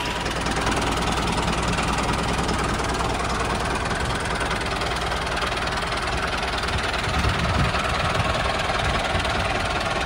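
Small engine of a home-made mini tractor running steadily at an even pace.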